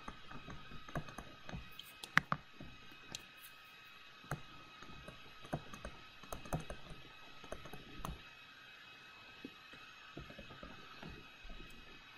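Stylus tapping and scratching on a tablet screen during handwriting: irregular soft clicks, one sharper click about two seconds in, thinning out after about eight seconds, over a faint steady whine.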